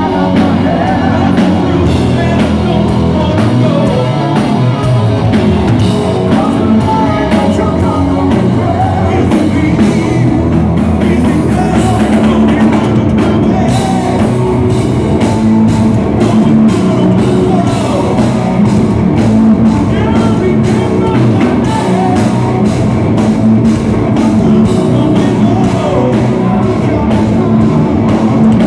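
A live rock band playing loudly: drums, bass, guitar and keyboards, with a singer singing over them.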